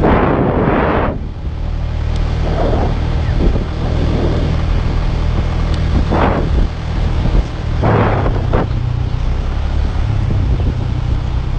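Motorcycle engine running steadily on the move, with wind buffeting the microphone. Louder gusts of wind rush come about a second in, around six seconds and around eight seconds.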